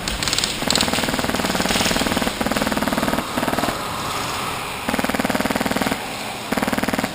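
Airsoft gun firing on full auto in bursts of rapid, evenly spaced shots. There are five bursts: a long one of about two seconds, then four shorter ones.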